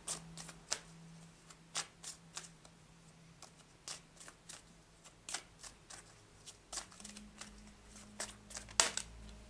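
Oracle cards being shuffled by hand: irregular soft clicks and slaps of the cards, a few a second, with the sharpest one just before the end.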